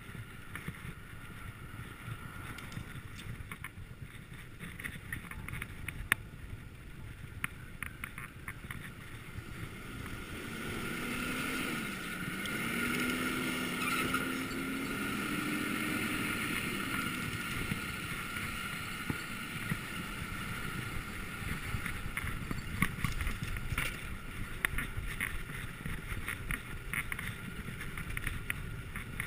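Wind over the microphone and road noise from a moving bicycle, with scattered light rattles. Midway a box truck's engine gets louder close by, its note dipping and then rising before it fades.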